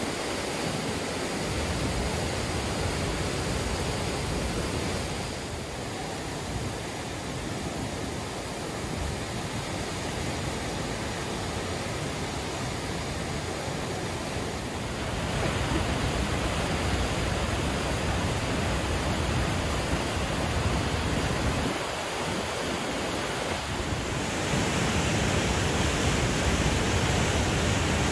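Water gushing through the open sluice of a marina lock gate and crashing into the chamber as the lock fills: a steady rush of churning white water. It grows louder about halfway through and again near the end.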